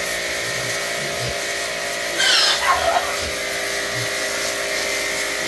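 A pig squeals once, briefly and shrilly, a little over two seconds in, over a steady mechanical hum.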